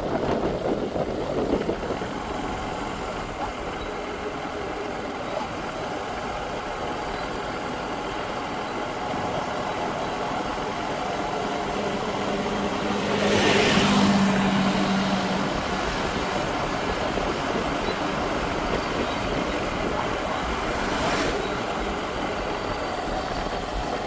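Motorcycle running along a road with steady wind and road noise. Another vehicle passes about halfway through, briefly louder.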